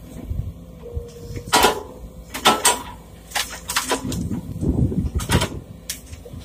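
Sumitomo SH210 hydraulic excavator running as its bucket tips soil into a steel dump-truck bed, with a string of sharp knocks and thuds as the earth lands and the bucket works, over the low, steady diesel engine sound.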